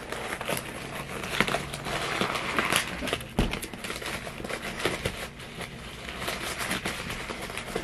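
Packing paper and plastic wrap crinkling and rustling as a Loungefly mini backpack is handled and opened, with irregular crackles and a few soft knocks.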